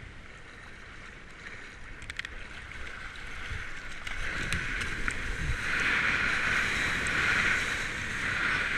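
Seawater rushing and splashing along a surfboard, heard from a camera on the board's nose. The rush grows much louder about halfway through as whitewater sprays up alongside the board.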